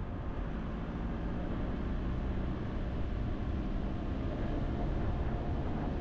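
Steady road and wind noise from a moving car: tyres on pavement and air rushing past, with a low rumble and no sudden events.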